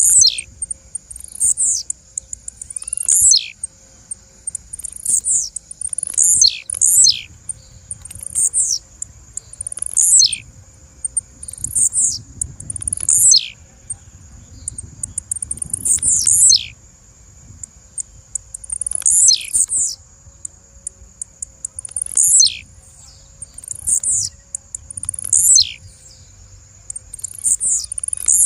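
Blue-black grassquit (tiziu) giving short, high calls over and over, each a quick downward sweep, roughly one every second or two, sometimes in quick pairs.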